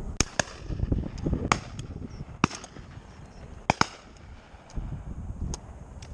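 Shotguns firing on a driven game shoot: a scatter of sharp reports, several close together in the first four seconds, some loud and some fainter and further off, then a few more spaced out near the end.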